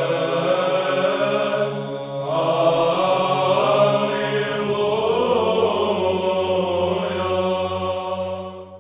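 Orthodox church chant sung by low men's voices: slow held notes over a sustained low drone, fading out at the very end.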